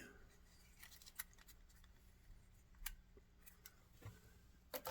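Near silence with a few faint, sharp clicks of HO-scale model railroad cars being handled and set down.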